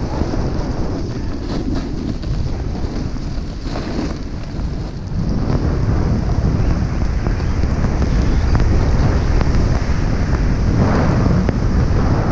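Wind rushing and buffeting over an action camera's microphone while snowboarding downhill, a steady low rumble that grows louder from about five seconds in.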